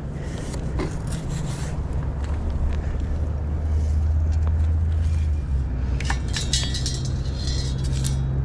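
Sand scoop digging into beach sand and sand being shaken through it, with a run of scraping and rattling about six seconds in, over a steady low rumble.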